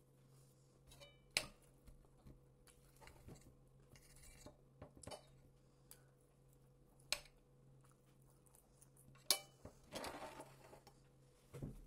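Metal fork clinking and scraping against a plate while eating, with several sharp clinks that ring briefly. A short rustle follows near the end.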